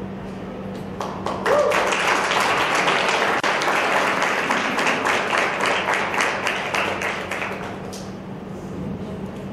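Audience applauding: the clapping builds about a second in, holds steady, then dies away near the end.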